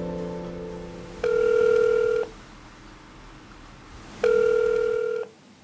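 A telephone ringback tone beeps twice, each beep about a second long and about three seconds apart: the call is ringing unanswered at the other end. A held music chord fades out under the first second.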